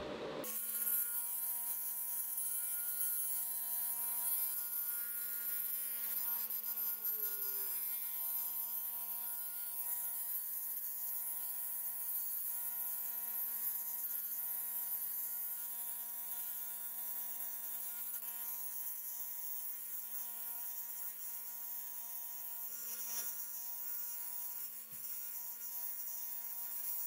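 Fiber laser cleaner running: a steady buzzing hum with a high hiss over it as the beam strips old paint off a cast-metal bread-slicer arm.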